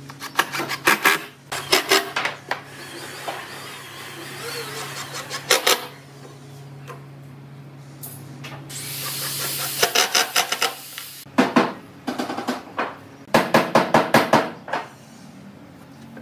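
Pine planks and bar clamps being handled while planking a wooden boat frame: several bursts of rapid clicking and knocking, with wood rubbing and sliding in between.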